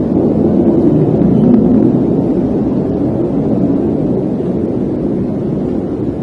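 Loud, low, steady droning rumble of the reported "sky trumpet" noise, an unexplained sound heard in the sky, swelling slightly about one and a half seconds in.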